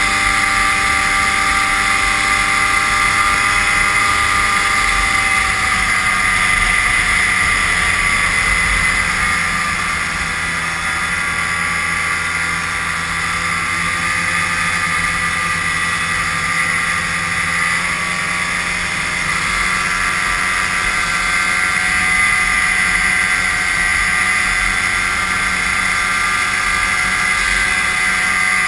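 Two-stroke snowmobile engine running steadily at trail speed. Its note sags a little about a third of the way in and picks back up later.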